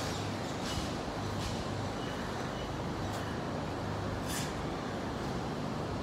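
Steady low hum over a rushing background noise, with a few brief scuffs about a second in and about three and four seconds in.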